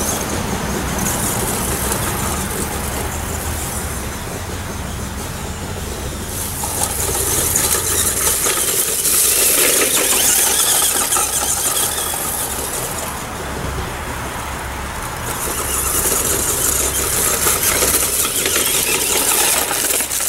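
Tamiya Lunchbox RC truck driving, its brushed electric motor and gears whining and its tyres hissing in three long surges as the throttle is pushed and let off.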